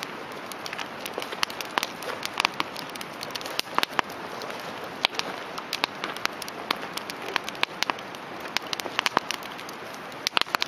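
Wood campfire crackling: irregular sharp pops and snaps over a steady hiss of burning.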